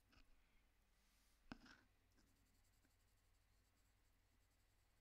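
Very faint scratching of a Prismacolor Premier coloured pencil shading on Fabriano toned paper, with one sharp tick about a second and a half in.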